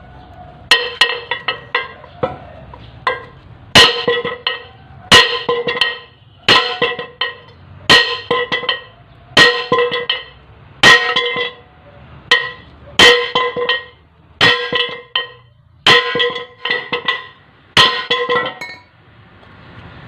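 A large hammer repeatedly striking the steel yoke of a propeller shaft's cross joint (universal joint) to drive its bearing cups out. There is a heavy blow about every second and a half, often with a quick second hit or rebound, and each rings with a clear metallic note.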